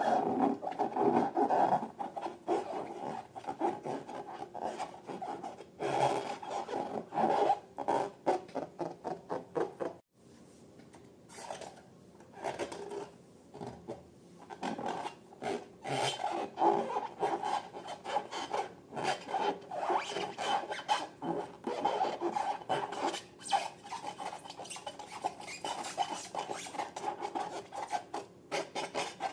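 Rapid, continuous rubbing and scraping strokes from handling balloons and slime, with a short break about ten seconds in.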